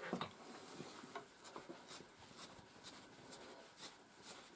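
Hand-stripping a miniature schnauzer's wiry coat with a stripping tool: short, faint pulling strokes at an irregular pace, about two or three a second, as the dead top layer of coat is plucked out.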